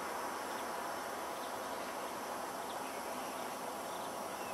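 Steady outdoor background noise, with a few faint, short high chirps, most likely small birds.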